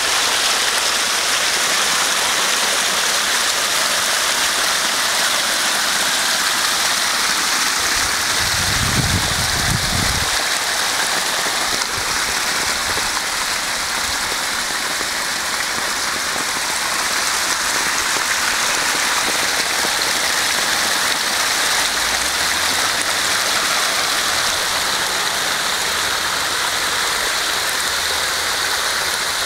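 Sewer manhole overflowing: water spouts up around the manhole cover and splashes down over the concrete rim and the ground in a steady rushing stream, the sewer surcharged by a heavy downpour. A brief low rumble about eight seconds in.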